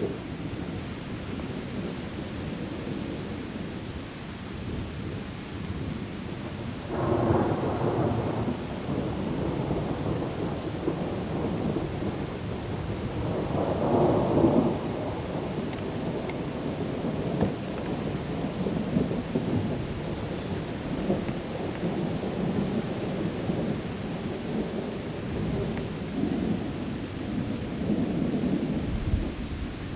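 Steady rain from a thunderstorm with thunder rumbling. A louder roll of thunder comes about a quarter of the way in and another about halfway through.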